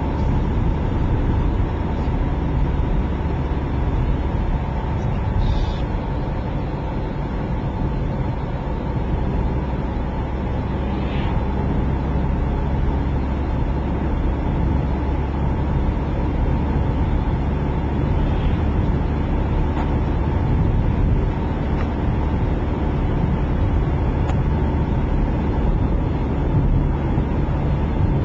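Car driving at a steady speed heard from inside the cabin: a low, even rumble of engine and road noise with no change throughout.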